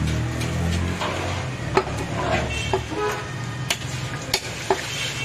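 Butcher's large knife chopping goat head pieces on a wooden block: about six sharp knocks at uneven intervals, the loudest about two seconds in, with handling of the meat between strokes over a low steady background hum.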